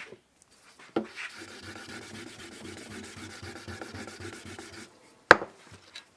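Quick, even back-and-forth rubbing on a sharpening surface for about four seconds, then a single sharp knock.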